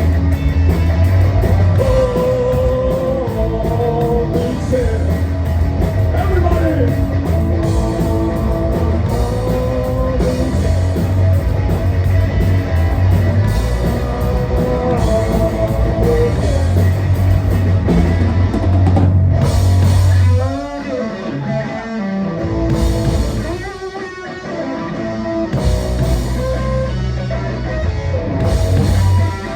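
A live rock band plays loud: electric guitars, bass and drum kit. About 20 seconds in the music drops to a quieter, sparser passage with wavering, warbling notes, then builds back up near the end.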